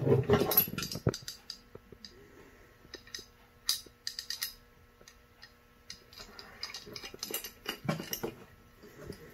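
Light, scattered metallic clicks and taps as a Holley four-barrel carburetor's fuel bowl, with its gasket in place, is handled and fitted onto the carburetor. One short cluster of clicks comes about four seconds in and another near the end.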